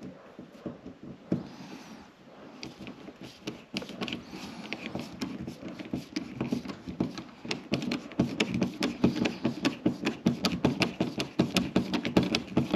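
Screwdriver tightening screws into an electrical box: a fast run of small clicks and scrapes that grows denser and louder about halfway through.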